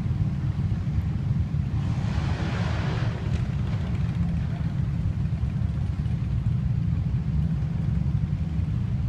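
Pickup truck engine running with a steady low rumble; a brief hiss rises and fades about two seconds in.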